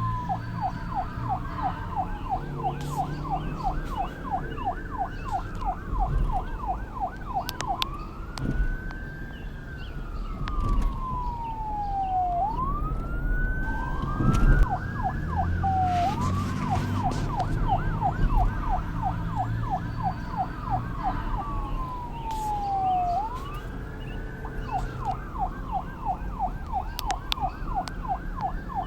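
Police car sirens: a fast yelp of about four rising chirps a second sounding together with a slower wail that rises and falls, over a low rumble.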